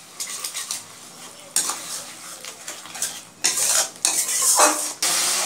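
A spatula stirring and scraping a spice masala of onion, ginger-garlic, tomato and ground spices as it sizzles in a nonstick wok, in irregular strokes. This is the masala being fried down until cooked. About five seconds in, the sizzle rises to a steady, louder hiss.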